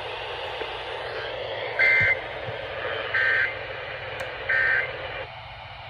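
Three short EAS end-of-message data bursts: the SAME digital tones, each a quick warble between two pitches, about a second and a half apart. They mark the end of the required weekly test message and sound over a steady hiss of radio static.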